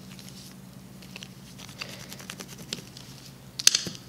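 Hands handling paper and craft materials on a tabletop: light scattered taps, rustles and small clicks, with a louder clatter of several clicks about three and a half seconds in, over a faint steady low hum.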